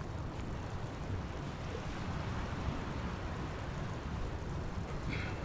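Wind buffeting the microphone outdoors, a steady rumbling noise, with a brief high tone about five seconds in.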